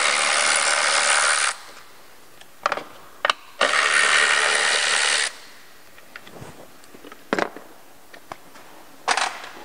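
Cordless electric ratchet running in two bursts of about a second and a half each, spinning bolts out of an intake plenum, with light clicks of tools and parts between the bursts.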